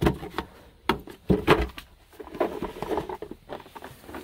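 A few sharp knocks and clatters, then irregular rubbing and shuffling, as hard objects are handled and set down.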